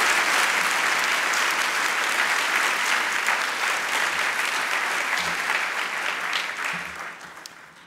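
Audience applauding steadily in a large ballroom, dying away near the end.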